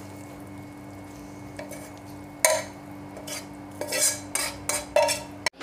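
Metal spoon scraping and knocking against a wok as fried eggplant and boiled eggs are pushed out of it into a bowl: one sharp knock about halfway through, then a quick run of clinks and scrapes. A steady low hum runs underneath.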